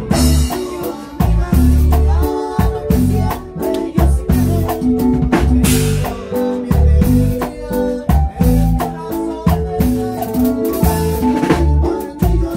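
Live grupero band playing: a drum kit keeps a steady beat under bass and electronic keyboard lines.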